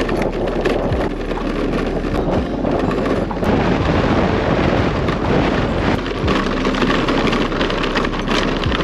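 Wind noise on the microphone over a Yamaha scooter's engine running, with frequent rattles and knocks as the scooter jolts over a rough, stony dirt track.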